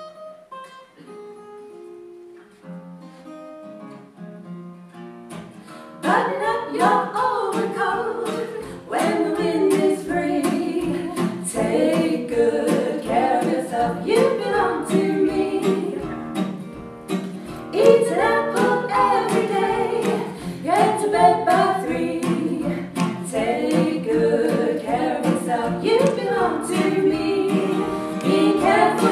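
Acoustic guitar picking a quiet introduction of single notes, then from about six seconds in several voices start singing together over the guitar, much louder.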